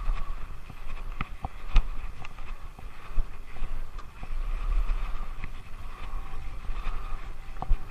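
Mountain bike rolling over an asphalt pump track, picked up by a camera mounted on the bike: steady low rumble of wind and tyres, broken by scattered sharp clicks and rattles from the bike. The loudest click comes about two seconds in and another near the end.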